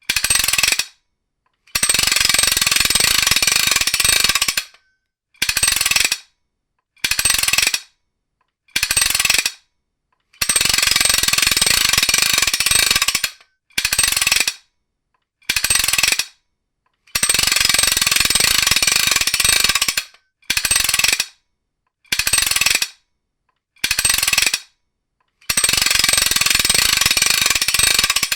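Ratcheting trailer wrench being cranked in runs of rapid pawl clicking, some of about three seconds and many short ones under a second, with silent gaps between.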